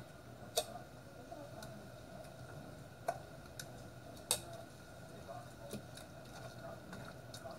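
Faint wet squishing of a hand rubbing thick jerk marinade into raw chicken pieces on a metal baking pan, with a few sharp clicks against the pan.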